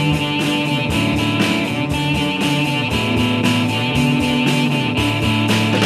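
Rock intro music with guitar over a steady drum beat.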